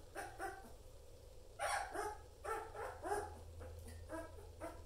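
A two-week-old German Shepherd puppy crying in a string of about ten short, high whimpers.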